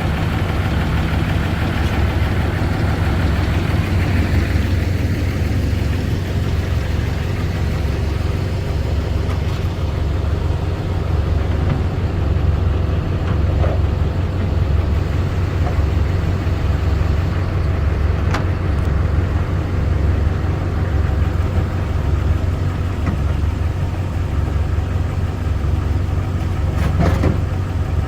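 Large engine idling steadily with a low, even drone, and a couple of faint clicks, one about two-thirds of the way through and one near the end.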